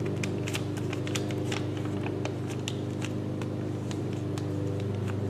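Paper being folded and creased by hand, with scattered soft crinkles and ticks, over a steady low hum.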